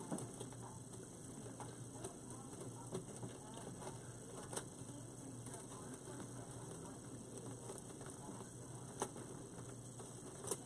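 Faint handling noise of a thick rustic wire hanger being worked onto a dry grapevine wreath: light rustling with a handful of sharp, scattered clicks, over a faint steady hum.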